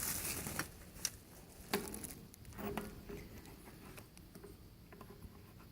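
Faint handling noise: a couple of small sharp clicks in the first two seconds, then light rubbing and clatter of parts being handled.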